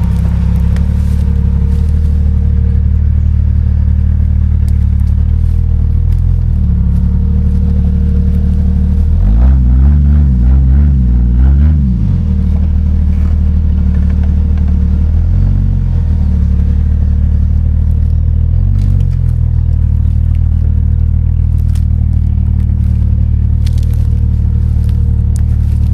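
Off-road 4x4's engine running steadily at low revs, with a throttle burst near the middle that rises and falls over about two seconds, then two short blips. Light clicks and clatter sound over it.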